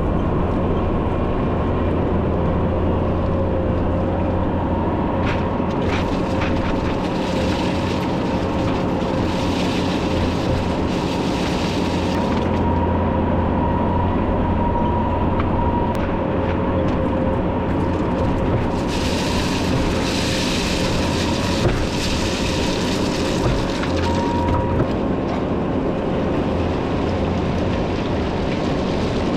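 Bobcat T650 compact track loader's diesel engine running steadily with a high whine over it. A few sharp clanks come from the machine as it works gravel.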